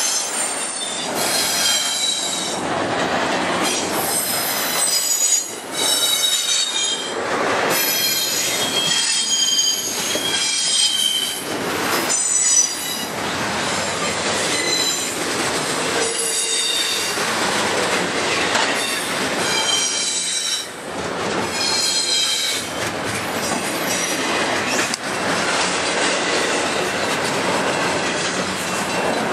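Double-stack intermodal container cars rolling past close by: steady wheel-on-rail noise with high-pitched wheel squeal that comes and goes, strongest in the first twelve seconds or so and again around the middle.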